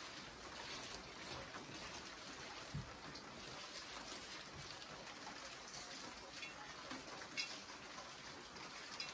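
Faint steady hiss of a pot of dalia (porridge) cooking on a stove, with a few light clicks.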